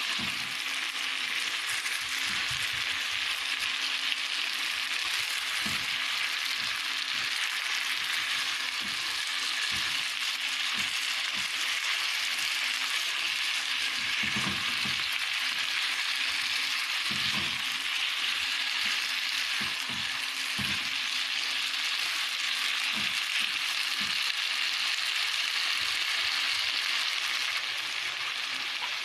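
Sliced onions, tomatoes, green peppers and red chilies sizzling steadily as they sauté in hot oil in a pan, softening. Irregular soft knocks come from a silicone spatula stirring them against the pan.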